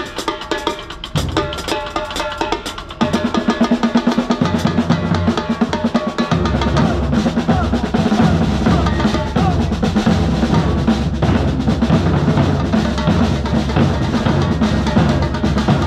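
Street drum band of large bass drums and snare drums playing a driving beat. It gets louder about three seconds in, and the deep bass drums come in fully around six seconds.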